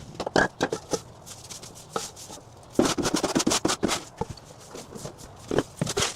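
Knocks and clatter of hard objects being handled and set down, with a quick run of rattling knocks about three seconds in.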